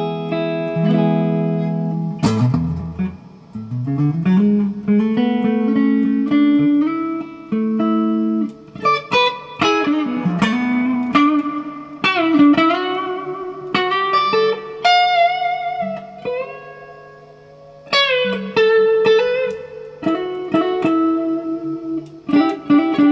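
Gibson Les Paul electric guitar played through an amp: a held chord, then picked lead lines with notes sliding and bending up in pitch, ringing chords, and a softer sustained passage a little past the middle.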